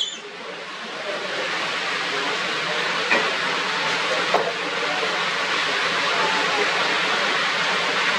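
Steady rushing hiss that builds up over the first second and then holds, with a couple of faint clicks about three and four seconds in.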